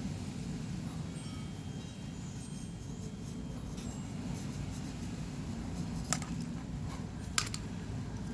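Steady low hum in the background, with a few short sharp clicks or taps a little past six seconds and about seven and a half seconds in.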